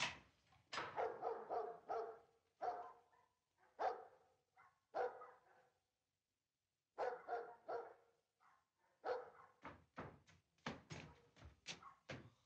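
A dog barking repeatedly in short, sharp barks, stopping for about a second in the middle, then barking faster near the end.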